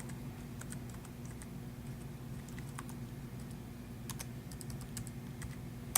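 Light, irregular key clicks of typing on a laptop keyboard, over a faint steady low hum.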